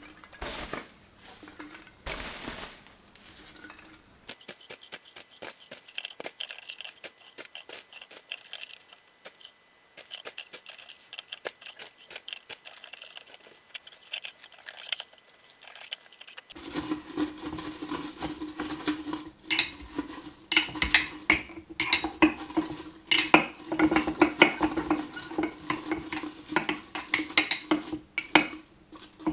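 Light ticks and rustles as polystyrene packing peanuts are dropped into a glass jar of petrol. A little past halfway, a metal rod starts stirring and pressing them down to dissolve them, clinking and scraping against the glass in dense, uneven strokes.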